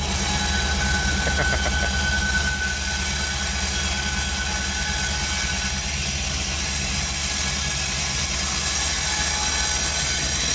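Norfolk Southern GE ES44AC diesel-electric locomotive, with its V12 GEVO diesel, approaching at the head of a loaded coal train. Its engine gives a steady low drone.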